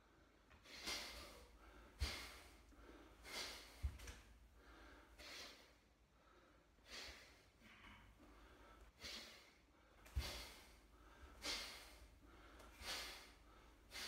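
A man's short, sharp breaths forced out with each strike of a knife drill, about one every second or so, with a few soft low thuds between them.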